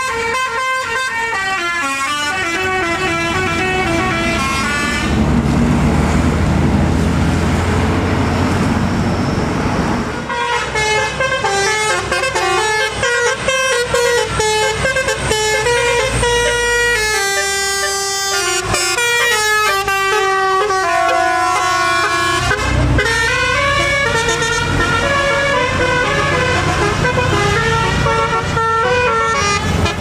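Indonesian 'telolet' basuri multi-tone musical bus horn playing quick stepping tunes, note after note, as buses and escort vehicles pass. About five seconds in the tune gives way for several seconds to louder diesel engine and road noise, then the horn melodies resume.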